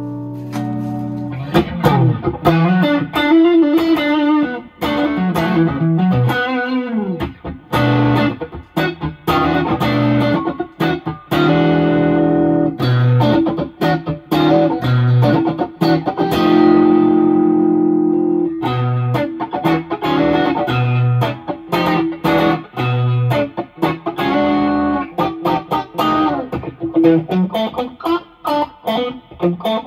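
Strat-style electric guitar with a Suhr ML pickup set, played through an overdrive pedal and amplifier: an overdriven tone demo of riffs and lead lines with some held notes and short pauses.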